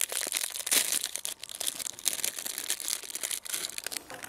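Thin plastic food wrapping crinkling and crackling as it is pulled off a Scotch egg by hand, a dense run of small, sharp crackles.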